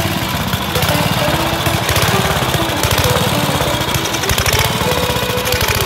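Antique stationary hit-and-miss gas engines running, a rapid, steady train of exhaust firing pulses.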